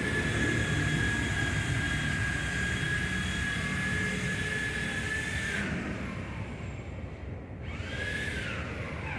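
A high-speed power tool running with a steady whine over a rushing hiss, winding down with a falling pitch a little over halfway through, then spun up again near the end.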